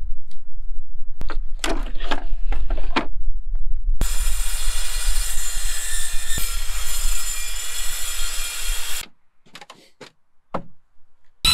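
Pallet boards knocking and scraping as they are handled, then a small circular saw cutting through pallet wood for about five seconds, stopping suddenly. A few light wooden knocks follow near the end.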